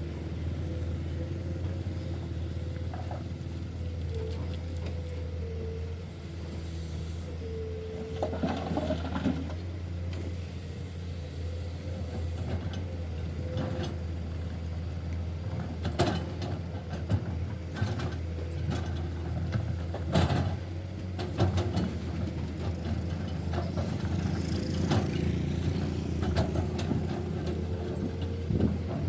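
Heavy diesel machinery running steadily with a constant low hum and a slightly wavering whine, broken by scattered knocks and clanks, as at a dump truck being loaded with limestone.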